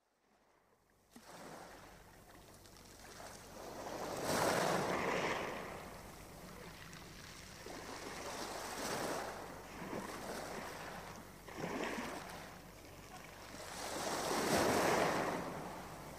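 Sea surf rushing in and washing back, a noise haze that fades in about a second in and then swells and ebbs about four times.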